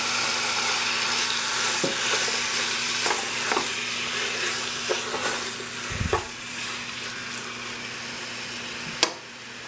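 Marinated chicken pieces sizzling in hot olive oil in a saucepan as they are stirred, with the utensil knocking against the pot now and then. The sizzle eases after about six seconds, and a sharp clack comes near the end.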